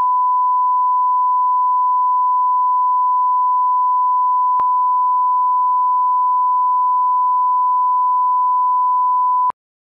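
Steady 1 kHz reference test tone, the line-up tone that goes with SMPTE colour bars, with a faint click about halfway through; it cuts off suddenly near the end.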